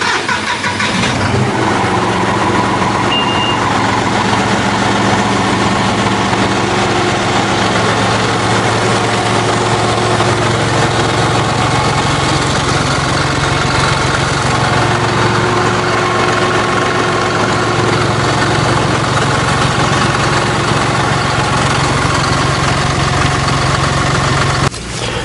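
John Deere 5075E tractor's three-cylinder diesel engine cranking, catching and then idling steadily on its first run after an oil and filter change, while the oil pressure comes up and the new filter fills. The engine stops near the end.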